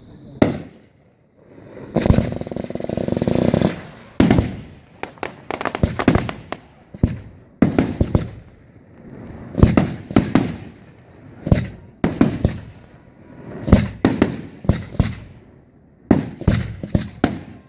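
Professional fireworks display: aerial shells bursting in quick succession, sharp bangs every half second to two seconds, with a dense run of them about two seconds in.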